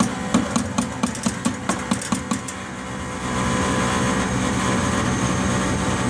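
Gas furnace ignition clicking rapidly, about four to five clicks a second, over the steady hum of the draft inducer (exhaust) fan; the clicks stop about two and a half seconds in while the fan keeps running. This is the clicking complaint: the pilot is lit but the main gas valve does not open, a fault traced to the Honeywell S8610U intermittent pilot ignition control.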